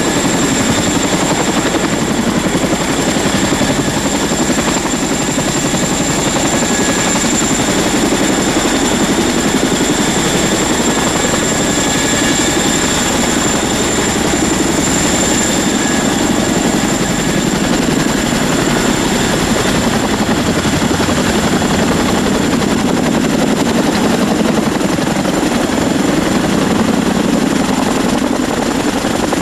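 A steady, loud motor drone with a constant high whine.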